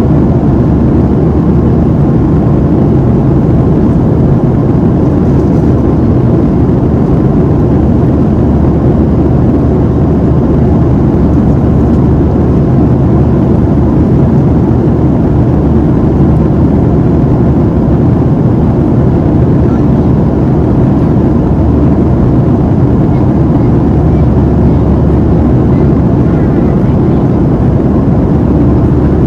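Steady cabin noise inside a Boeing 737-700 in flight: the CFM56-7B turbofans and rushing airflow, a low, even roar with no change.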